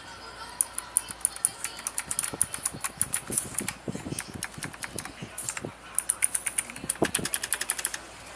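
Typing on a Gigaware K28 mechanical keyboard with clicky blue switches: rapid sharp key clicks in two fast runs, with a slower stretch in the middle.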